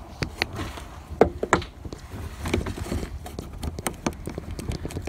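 Scattered small clicks and knocks of plastic wiring connector clips on a fuel pump hanger being handled and worked by fingers to release them.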